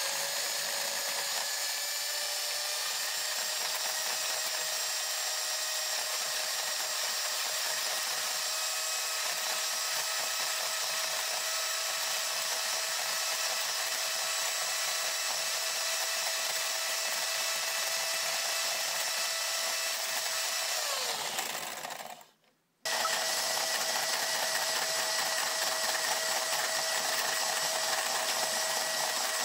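SilverCrest electric hand mixer running at a steady whine, its beaters whipping warmed egg whites and sugar into meringue. About 21 seconds in its pitch sinks and it stops for a moment, then it runs again at full speed.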